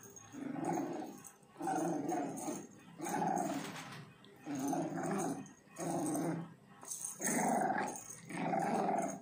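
French Bulldog puppy growling in play while tugging on a rope: about seven growls, each under a second long, with short gaps between them.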